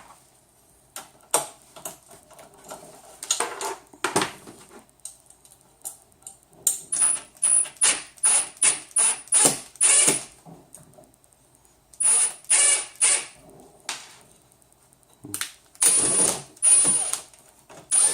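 Screws being driven to join frame parts: groups of short mechanical clicks, with a quick run of about eight clicks in the middle and shorter runs later.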